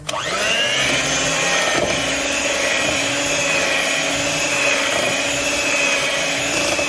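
Electric hand mixer switched on, its motor whine rising for a moment as it spins up and then running steadily as the beaters churn flour and spices into cake batter.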